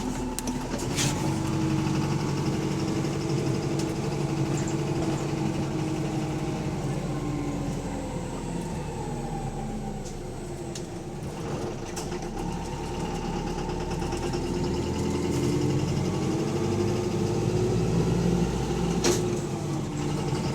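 Bus engine running with a loud knock, which the uploader takes for rod knock: a worn connecting-rod bearing. The engine note rises and falls as it pulls and eases off, with a few sharp clicks.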